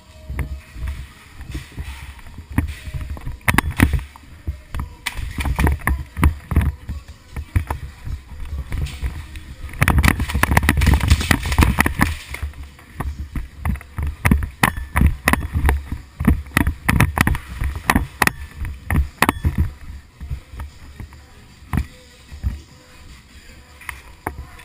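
Irregular sharp clicks and knocks over a low rumble, with a dense flurry of them lasting about two seconds, starting about ten seconds in.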